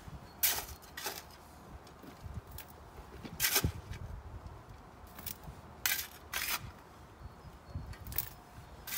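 Steel spade digging into soil: a series of short, sharp scrapes a second or two apart, with earth tossed into a metal wheelbarrow.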